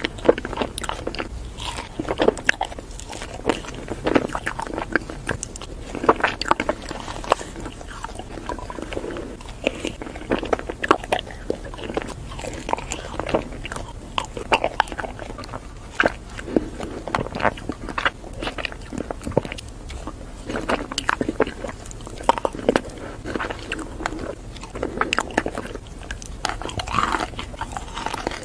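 Close-miked bites and chewing of frozen ice cream: crunching bites one after another, with wet chewing between them.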